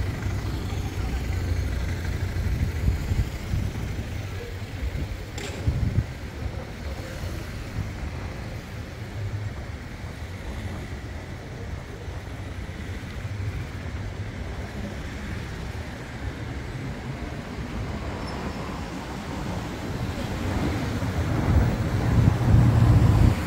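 City street ambience: a steady hum of road traffic. There is a sharp click about five seconds in and a louder low rumble near the end.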